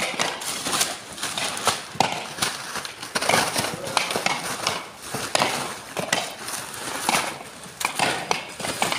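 Dehusked coconuts knocking against one another as they are picked up, tossed and dropped onto heaps, an irregular run of quick knocks and clacks.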